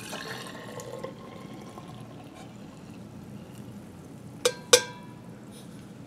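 Just-boiled water pouring from a titanium camp mug into a Thermos stainless steel vacuum food jar, a faint steady pour. About four and a half seconds in, two sharp metal clinks a quarter second apart.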